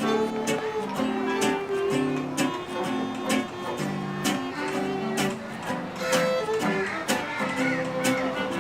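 Folk-style music: strummed acoustic guitar in a steady rhythm with a fiddle playing along.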